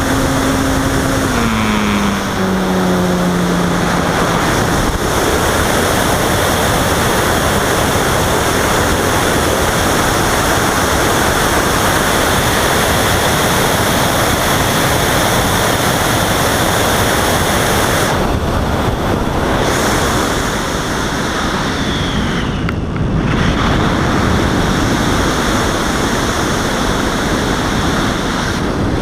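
Steady rush of wind noise on the onboard camera microphone of a Robbe Arcus Sport RC electric glider in gliding flight. In the first few seconds the motor's whine steps down in pitch and stops as the power is cut.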